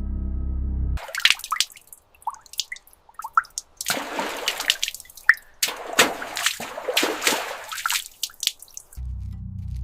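Water dripping and splashing: irregular plinking drops and small splashes, with two longer splashing stretches in the middle.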